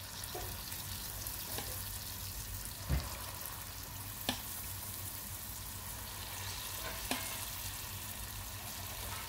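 Dollops of moong and urad dal batter deep-frying in hot oil in a steel pan: a steady sizzle of oil bubbling around the vadas. Three sharp taps of the spoon against the pan stand out as more batter is dropped in, the first about three seconds in and the loudest.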